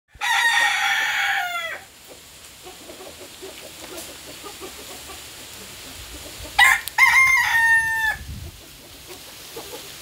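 Rooster crowing twice: one crow right at the start, ending in a falling note, and a second about six and a half seconds in, a short note followed by a long held one.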